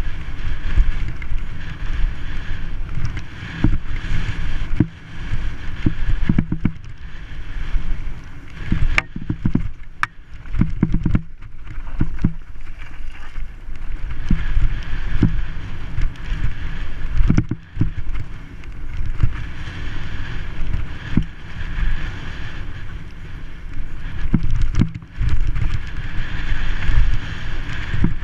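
Wind buffeting a helmet-mounted camera's microphone as a mountain bike descends a dry dirt singletrack, with the tyres rolling over the dirt and the bike knocking and rattling over bumps.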